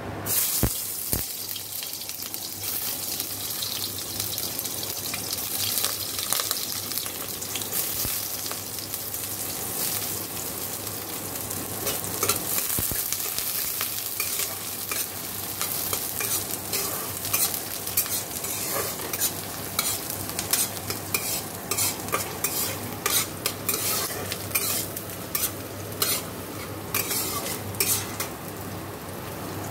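Chopped onion and green chilli sizzling in hot oil in a non-stick pan while a spatula stirs and scrapes. The sizzle starts suddenly just after the start as they hit the oil, and the spatula's clicks and scrapes come more often in the second half.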